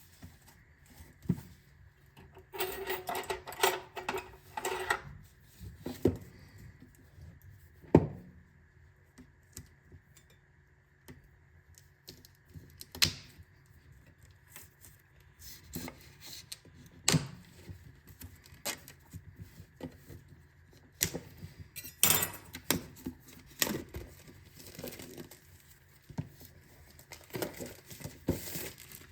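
Packaging being handled and opened: a stretch of rustling about three seconds in, then scattered sharp clicks and knocks.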